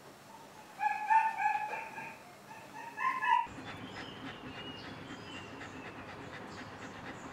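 A dog whining in several high, drawn-out cries from about one to three and a half seconds in, then fainter high whines over a steady background hiss.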